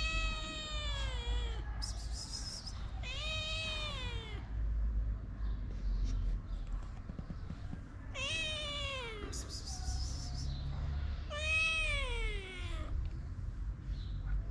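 A young black-and-white cat meowing four times, long drawn-out meows that fall in pitch, a few seconds apart.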